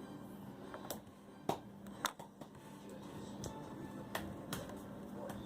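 Plastic Lego pieces being handled: about half a dozen light, separate clicks and taps over a faint steady hum.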